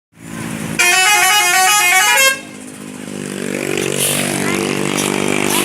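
Bus telolet horn, a multi-tone musical horn, playing a quick warbling run of alternating notes for about a second and a half, then cutting off. A vehicle engine runs underneath and carries on after the horn stops.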